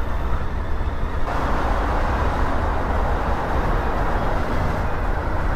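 A motorcycle ride heard from the rider's helmet: steady wind rumble and road noise over the running bike, thickening a little about a second in.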